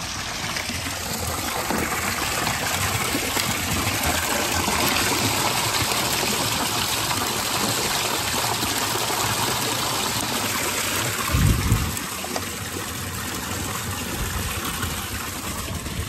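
Fresh mountain water running steadily from a drinking fountain and spilling down over stones. A brief low thump comes about eleven and a half seconds in.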